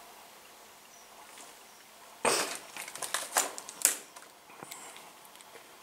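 Footsteps crunching and crackling through dry twigs and debris, a dense run of crackles starting about two seconds in and lasting nearly two seconds, then a few faint snaps.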